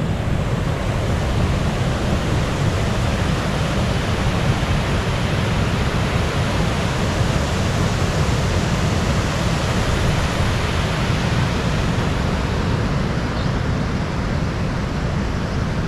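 River water pouring steadily over a concrete causeway crossing, a continuous rushing with a strong low rumble.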